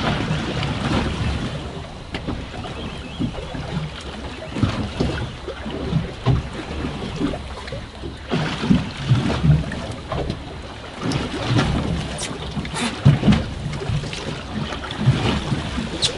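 Waves slapping against a small fishing boat's hull, with wind buffeting the microphone in irregular low gusts.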